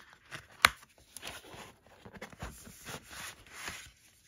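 Paper handling: thick printed art prints slid and rustled out of a paper envelope, in several soft swishes, with one sharp click about half a second in.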